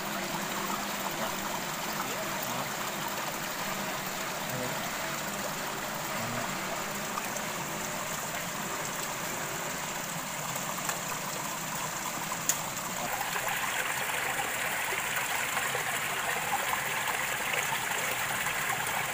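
Shallow rocky stream running steadily over and between stones, the rush of water growing a little louder and brighter about two-thirds of the way through. A single sharp click about halfway through.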